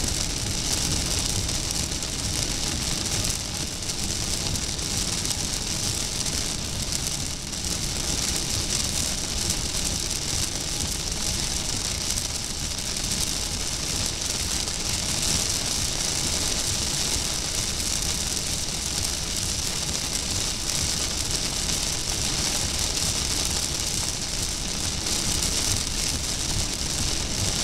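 Heavy rain on a moving car's windshield and roof, heard from inside the cabin as a steady hiss over the low rumble of the road and engine.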